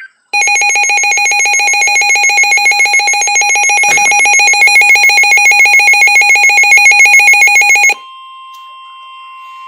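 Midland WR-400 weather radio sounding its loud, rapidly pulsing electronic alert alarm for about seven and a half seconds, triggered by an incoming SAME-coded severe thunderstorm warning. It cuts off abruptly, leaving the quieter steady 1050 Hz NOAA Weather Radio warning alarm tone from the broadcast.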